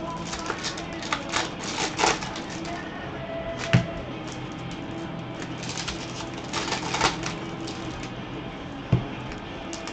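Baseball trading cards flipped quickly through gloved hands: runs of fast clicking flicks of card edges, with two louder knocks as the stack meets the table.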